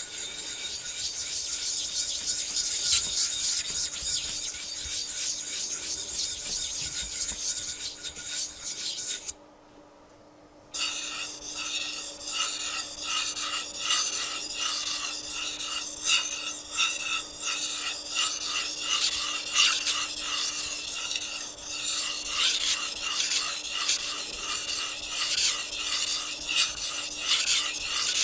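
Steady gritty rubbing on a fine #5000 whetstone as it is prepared, then, after a brief silence about nine seconds in, a Japanese chef's knife blade scraping back and forth across the wet stone in regular strokes, roughly two a second.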